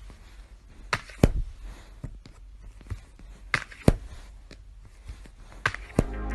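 A few irregular knocks and taps over a low steady hum, the sharpest about a second in, near the middle and near the end.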